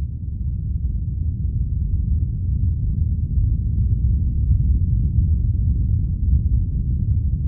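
Low rumble of a simulated megathrust earthquake: a steady, noisy rumble with nothing above the bass and no distinct tones, growing slightly louder over the first few seconds.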